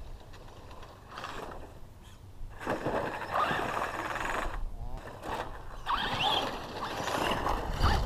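Brushless electric RC trucks driving on loose dirt: a motor whine that rises and falls in pitch with the throttle over a rough noise of tyres on dirt, getting louder from about two and a half seconds in.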